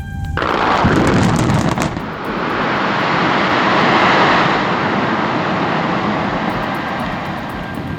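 A building collapsing in a demolition: a sudden loud rush of noise with a burst of sharp cracks in the first two seconds, then a sustained rumbling roar of falling debris.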